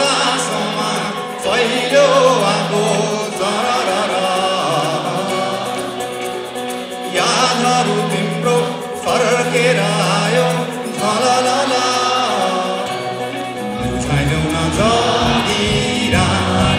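Live band playing a Nepali folk-rock song: a male voice sings over acoustic guitar and bass. About fourteen seconds in, a heavier low end with a steady beat comes in.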